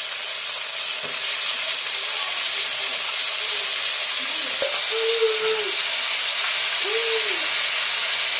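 Chopped cauliflower, green peas and onion frying in oil in a metal kadai: a steady sizzling hiss.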